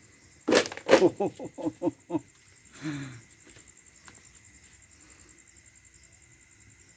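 Stray dog giving a quick run of about eight short yelping whimpers, each falling in pitch, then one lower whine about three seconds in: the nervous sound of a dog wary of the dead fish in front of it.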